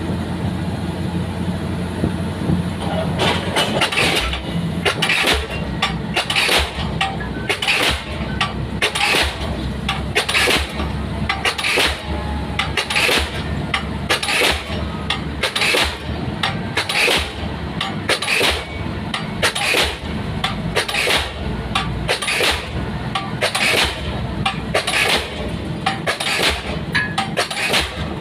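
Pile-driving hammer striking a pile at a steady rhythm, about one blow every second and a quarter, starting a few seconds in, over the steady running of the rig's engine.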